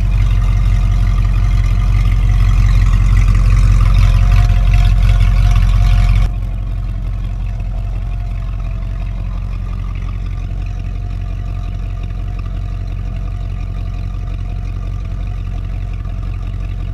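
Straight-piped 5.0L (302) V8 of a 1993 Ford F-150, running on stock headers and gutted catalytic converters, loud and raspy under the truck at raised revs. About six seconds in it drops suddenly to a quieter, steady idle.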